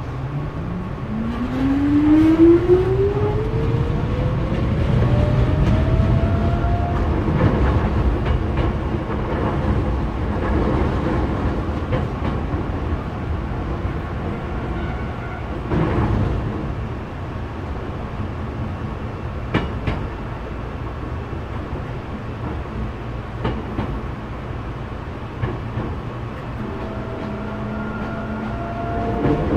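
Hankyu 3300 series electric train accelerating, its traction motor whine rising steadily in pitch over the first several seconds. It then runs on with steady wheel and rail noise and a few sharp knocks from the wheels over the track, heard from inside the leading car.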